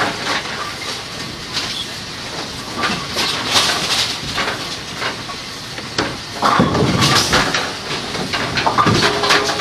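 Steady mechanical clatter and hiss with scattered knocks. A louder clunk and rattle about six and a half seconds in, as the lid of a Kegel Pin Shine pin-cleaning machine is lifted open.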